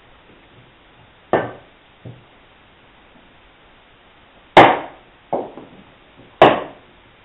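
Wooden mallet striking the back of a froe to split a sweet chestnut billet into shingles: five sharp knocks at uneven intervals, the two loudest in the second half, about two seconds apart.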